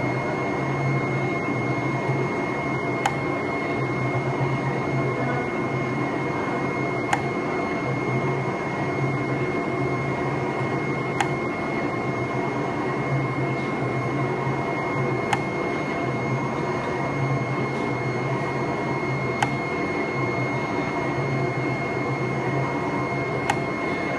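Flatbed CNC digital cutting machine cutting a vinyl sticker sheet: a steady whir and hiss with a held high whine, a low motor hum that rises and falls as the cutting head moves, and a sharp click about every four seconds.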